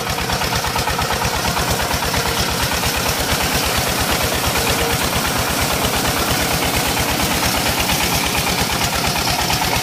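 Diesel engine running steadily with an even, rapid beat, driving a belt-driven centrifugal irrigation pump, with water gushing from the outlet pipe.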